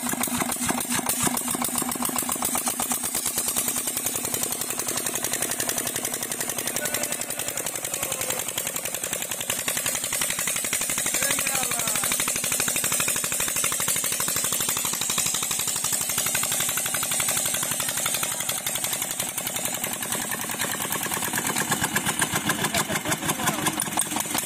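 Single-cylinder Petter diesel engine running steadily under load, belt-driving a water pump, with a fast, even exhaust beat.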